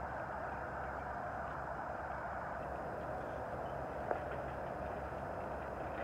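A steady, even rushing noise with a low rumble underneath, and a single sharp click about four seconds in.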